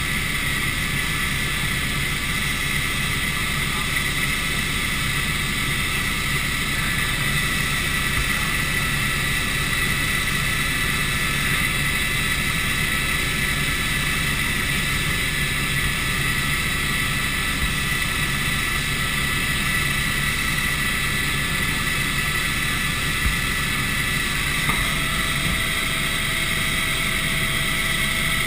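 Helicopter in flight heard from inside the cabin: steady rotor and engine noise with a high whine running over it. Near the end a second, lower tone comes in alongside the whine.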